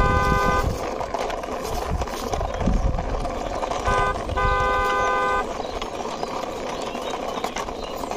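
A car horn sounds in a short-then-long pattern. One long toot ends about half a second in, and a short toot followed by a longer one comes about four seconds in. Underneath runs a steady low rumble from the hard plastic wheels of a hand-pushed toy car rolling over rough concrete.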